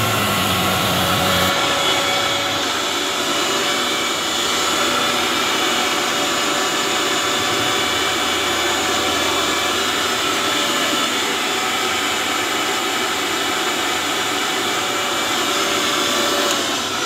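Electric blender motor running steadily at speed while blending cold coffee, a loud even drone that begins to wind down, falling in pitch, right at the end.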